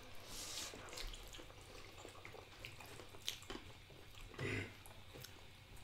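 Quiet eating of instant noodles: a short slurp just after the start, then faint wet mouth clicks and utensils tapping on ceramic bowls, with a brief louder mouth sound about four and a half seconds in.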